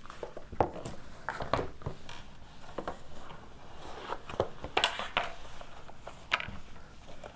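Cloth rustling with scattered light knocks and clicks as the collapsed SPUD pop-up display's black fabric cover is handled and folded while packing it up. The clicks come irregularly, the loudest about five seconds in.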